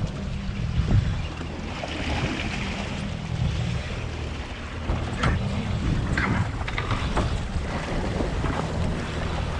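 Boat engine running steadily, with wind buffeting the microphone and water washing against the hull. A few short knocks and clicks come in the second half.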